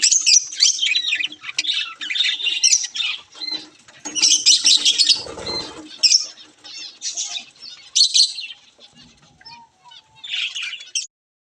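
Budgerigars chattering, with many quick high chirps and squawks overlapping, and a brief low flutter about five and a half seconds in. The sound cuts off suddenly near the end.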